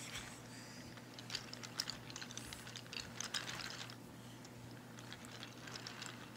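Wooden toy train cars rolling along wooden track, their wheels clicking and rattling faintly and irregularly over the track joints and switch.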